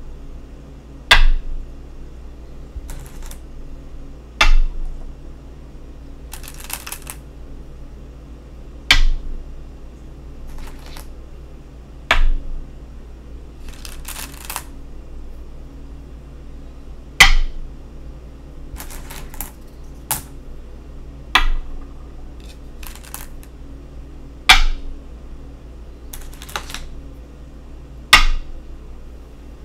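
Go stones struck down onto a wooden Go board, each placement a sharp, loud click, about nine times spaced a few seconds apart, with fainter clatters of stones in between.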